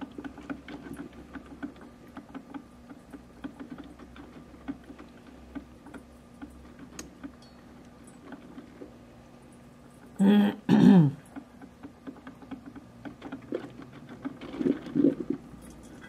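Capresso CoffeeTEAM TS drip coffee maker brewing: faint, irregular crackling and ticking of hot water sputtering and dripping through the brewer over a low steady hum. A short murmured voice sounds about ten seconds in.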